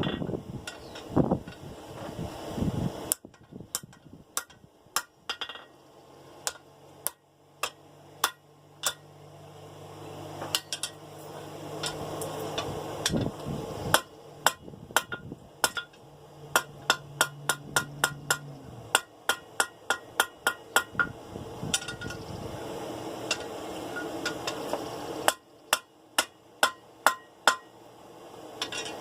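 Blacksmith's hammer striking a half-inch round steel bar on an anvil, bending it at a fullered mark. The blows come in runs of quick strikes with short pauses, some ringing briefly, over a steady low hum.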